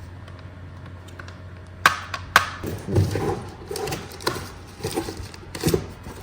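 Sharp plastic clicks and knocks of handling parts of a Dyson cordless vacuum: two loud clicks about two seconds in, half a second apart, then a run of softer clicks, bumps and rattles. A faint low hum sits underneath at the start.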